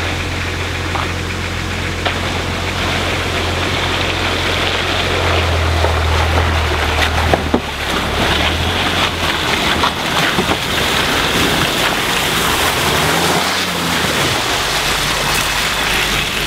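Honda CR-V engine running as the SUV drives through deep mud and water-filled ruts, with tyres splashing and churning. The engine hum is steady, and late on its pitch rises and falls once.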